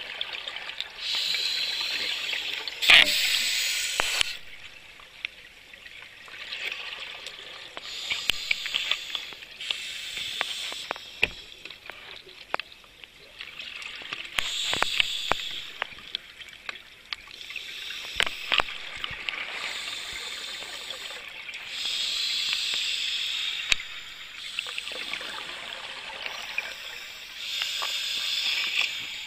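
Scuba regulator breathing underwater: a bubbly hiss of inhale and exhaust recurring every few seconds, with scattered sharp clicks between breaths.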